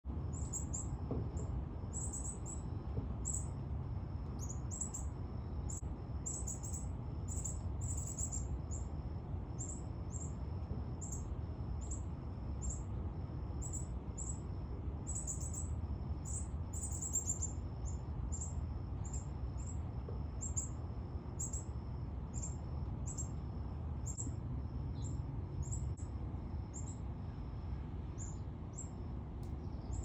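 Northern cardinals giving short, sharp, high chip calls, repeated about once or twice a second. Beneath them run a faint, evenly pulsing high note and a steady low background rumble.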